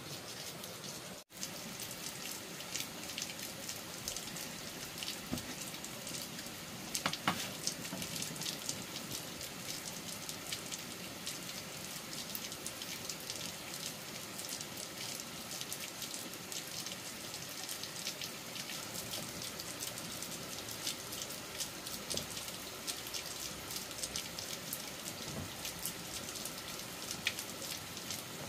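Steady rain falling, a dense patter of small drop ticks, cut off for an instant about a second in and a little louder around seven seconds in.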